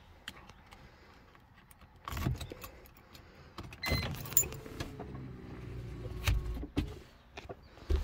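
Key clicking in the ignition of a Mercedes W140, then the electric seat belt extender motor running for about three seconds with a slightly falling pitch and stopping with a thud.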